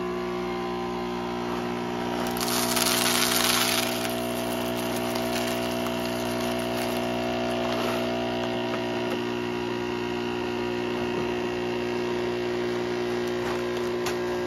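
Jura A1 espresso machine's pump buzzing steadily as it flushes water through its lines on first setup. About two seconds in, coffee beans poured into its bean hopper rattle for a second and a half.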